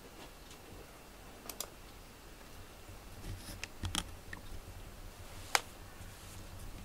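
Quiet room with a few scattered sharp clicks and light taps; the loudest, single click comes about five and a half seconds in.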